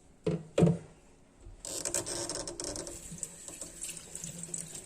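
Two short knocks, then a kitchen tap is turned on about a second and a half in and water runs steadily into the sink, for rinsing freshly picked oregano leaves.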